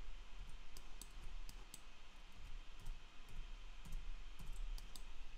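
Faint clicks from a computer mouse and keyboard, about a dozen at irregular intervals, over a steady low hum.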